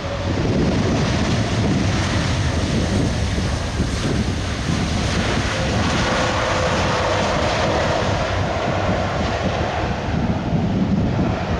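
Airbus A330-200 airliner's jet engines running as it rolls out along the runway after landing: a steady loud roar, with a whine coming in about halfway through. Wind buffets the microphone throughout.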